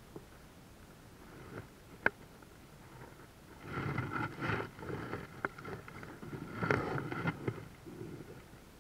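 Water splashing in uneven bursts over the middle of the stretch, after a single sharp click about two seconds in.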